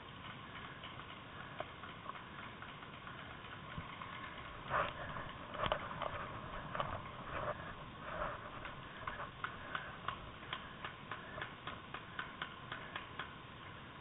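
Footsteps crunching over leaf litter and twigs on a forest floor as the camera wearer moves off, evenly spaced at about three a second in the second half, over a steady hiss.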